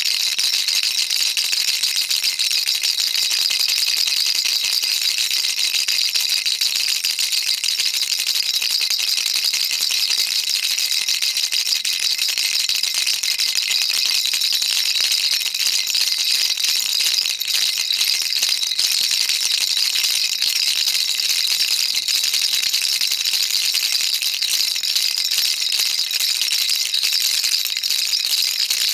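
Baby rattle shaken continuously and fast, a dense, even, high-pitched rattle of many small beads or pellets with no pauses.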